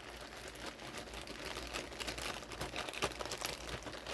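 Plastic toy bags crinkling and rustling in a stream of quick, irregular crackles as packaged toys are handled and sorted.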